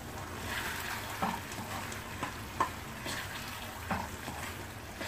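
A steel spoon stirring thick, thickening rava kesari (semolina pudding) in a pan on the stove, knocking and scraping the pan a few times, over a steady cooking sizzle.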